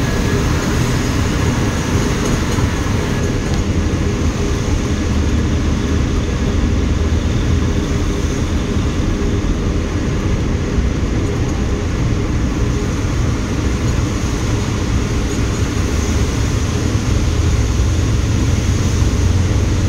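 Heavy truck's diesel engine running along with road noise, heard from inside the cab: a steady low rumble.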